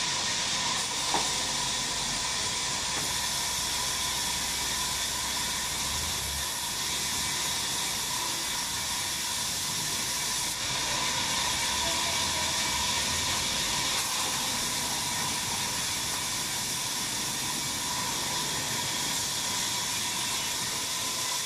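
Sawmill running steadily: an even hissing noise with a constant high whine, and a single brief click about a second in.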